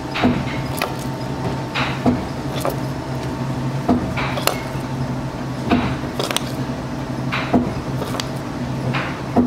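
Bakery machinery humming steadily, with sharp metallic clanks and clicks repeating about once a second, some in quick pairs.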